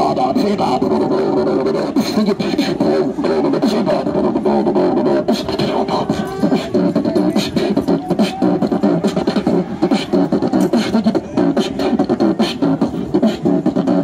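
Beatboxing into a handheld microphone and played through a portable amplifier: quick vocal percussion with sharp snare-like clicks over a deeper vocal bass, in a steady fast rhythm.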